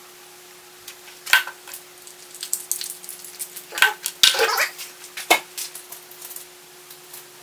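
A few light knocks and clatters of small tools and wood pieces being handled and set down on a wooden workbench, over a faint steady hum.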